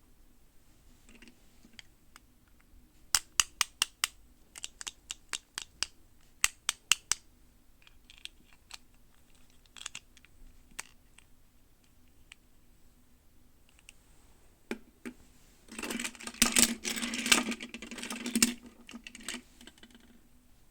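Plastic toy packaging and doll parts being handled: quick runs of sharp clicks and taps, then a louder, dense rustle with clicks for a few seconds near the end.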